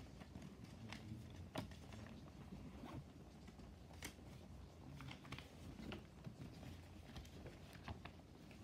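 Faint handling noises of small items and paper being picked up and put away, with a few light clicks and taps.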